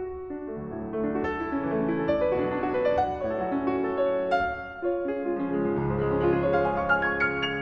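Solo piano playing fast, sweeping arpeggiated runs over many notes in a Romantic virtuoso style. About five seconds in it briefly thins, then a deep sustained bass comes in under the runs.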